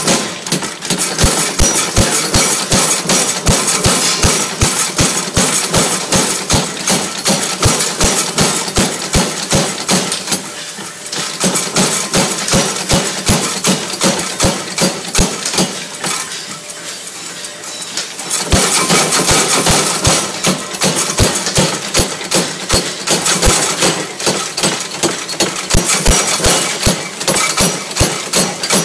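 Massey power hammer striking hot steel in a fast, even run of repeated blows while forging a set-down. The blows ease off briefly about eleven seconds in, drop away again for a couple of seconds past the middle, then resume.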